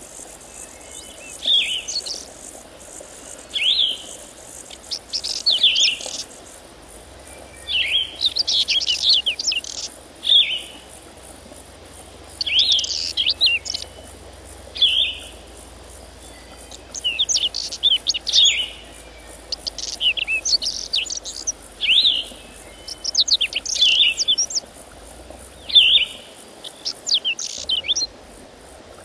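A songbird singing short, bright phrases repeated every second or two, with a faint steady high insect buzz behind.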